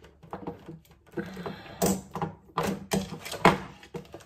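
Handling noise: an irregular string of sharp plastic clicks and knocks as an at-home IPL device and its power adaptor are handled and set up. The loudest knock comes about three and a half seconds in.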